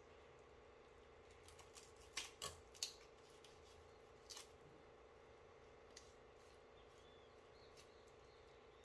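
Knife cutting through raw chicken joints and cartilage while deboning: a quick run of short, crisp snips about two seconds in and another just after four seconds, over a faint steady hum.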